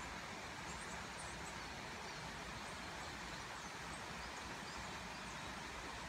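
Steady, even rush of a rocky woodland river flowing over stones.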